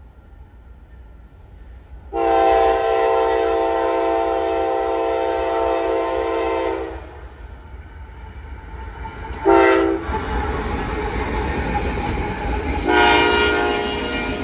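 Locomotive K5LA five-chime air horn sounding a long blast, a short one, then another long one, the end of the grade-crossing pattern. Under the horn, the rumble of the approaching freight train builds.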